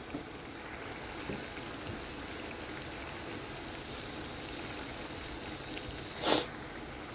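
Chicken pieces simmering and sizzling steadily in their own released juices in a frying pan. About six seconds in there is one brief, louder rush of noise.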